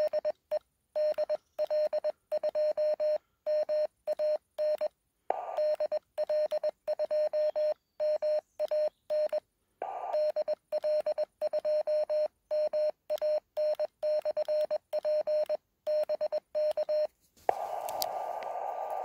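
(tr)uSDX transceiver's Morse code sidetone: a single steady tone keyed on and off in dots and dashes as a CW call is sent, with the receiver muted between the elements. About 17.5 s in, the keying stops and the receiver's band hiss returns.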